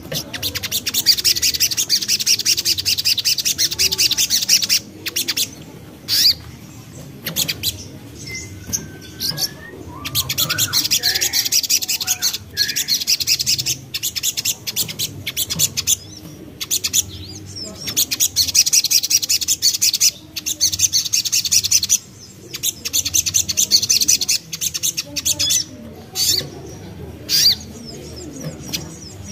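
Little spiderhunter (sogok ontong) chattering in fast, tightly packed trills. Each burst lasts one to a few seconds and the bursts repeat after short pauses. A few fainter gliding whistles sound about a third of the way in.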